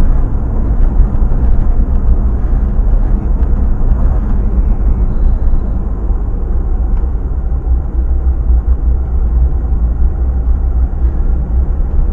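Steady noise of a vehicle on the move: a loud, low rumble of road and wind noise on the microphone, with a flickering loudness and no break.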